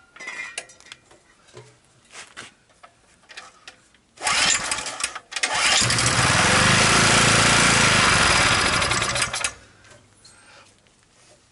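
Small engine of a 2 kW generator pull-started on starting fluid: a short burst about four seconds in, then it catches and runs steadily for about four seconds before dying. It runs only on the starting fluid and dies, a sign it is not drawing gasoline; the owner suspects the carburetor is not getting fuel.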